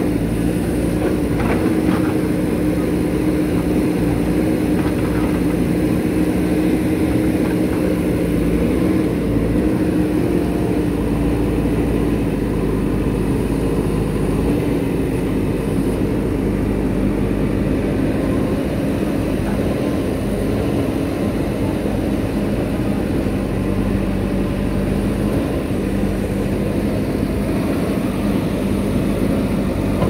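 JCB backhoe loader's diesel engine running steadily while the backhoe arm digs in wet mud and water, its note dipping slightly about a third of the way through.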